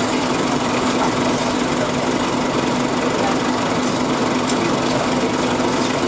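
Four-cylinder Detroit Diesel Series 50 engine of a Nova-RTS city bus running steadily, heard from aboard the bus, with a constant hum that holds one pitch throughout.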